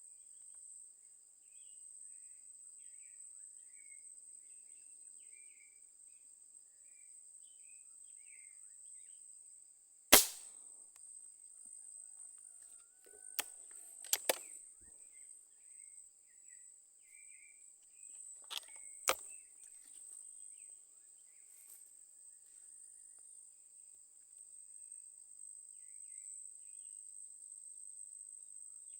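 Steady high-pitched drone of insects with faint bird chirps. A single sharp crack about ten seconds in, then a few lighter snaps and cracks around the middle.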